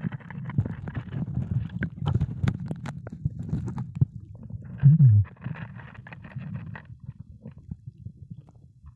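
Muffled sound heard through a submerged camera: a low bubbling rumble with many scattered clicks, a breathy hiss near the start and again about five and a half seconds in, and a short falling low groan about five seconds in.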